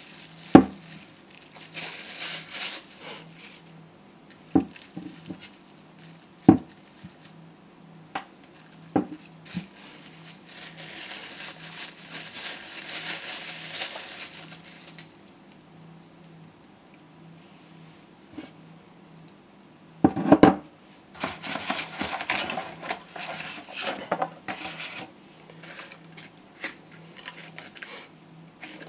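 Plastic wrapping crinkling and rustling as hands unwrap packed electronic parts, in several long stretches. Sharp knocks of hard parts set down on a tabletop come at intervals, the loudest about half a second in, around six and a half seconds in and near twenty seconds in.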